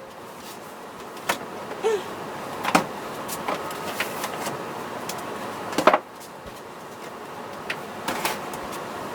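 Food containers and jars being handled and set down while a fridge is emptied: a few separate knocks and clunks, the loudest about six seconds in, over a steady background hum.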